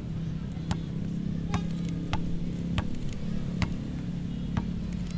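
Street ambience: a steady low hum under a run of sharp, irregular clicks and knocks, roughly one or two a second.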